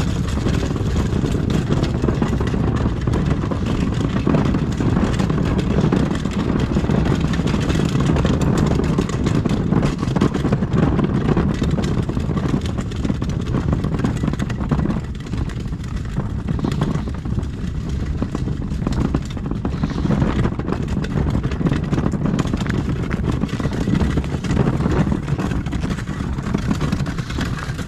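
A wheeled garbage bin rolled along a driveway, its wheels rumbling steadily over the surface.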